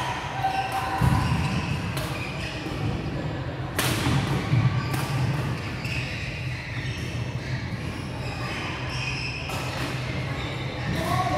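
Badminton rackets hitting shuttlecocks and players' shoes landing on a wooden court floor: a scattered series of sharp hits, the loudest about four seconds in, echoing in a large sports hall.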